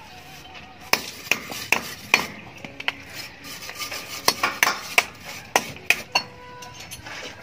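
Steel plastering trowels scraping and slapping wet cement mortar onto a block wall, with irregular sharp clinks of metal on metal, about two a second.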